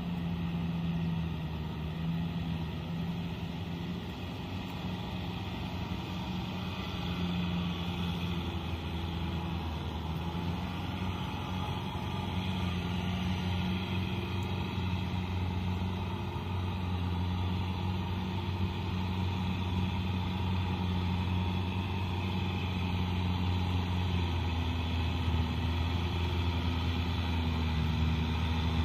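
Kubota tractor's diesel engine running steadily as it tills a flooded, muddy rice paddy, a low, even hum that grows gradually louder as the tractor comes closer.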